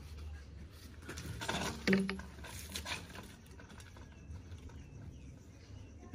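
A plastic PVC drain pipe is handled and set down on concrete. There is scraping and rattling, and a hollow knock about two seconds in with a short low ring, then a few light clicks. Faint bird chirps follow.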